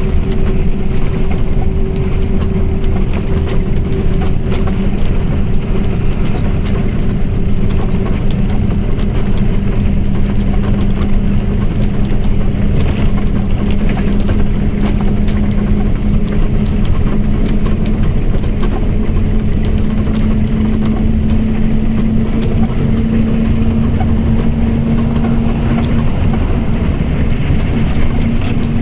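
Mercedes-Benz OF1722M bus under way, its drivetrain running with a steady differential whine that climbs slowly in pitch over the second half as the bus gathers speed.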